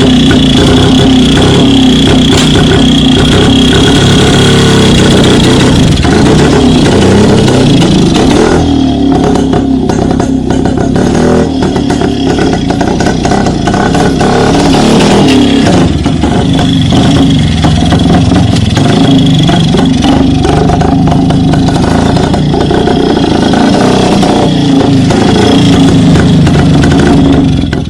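Two-stroke single-cylinder engine of a 1975 Rajdoot 175 motorcycle running loudly and being revved, its pitch rising and falling. The engine runs after a long lay-up, following a cleaned carburettor and spark plug.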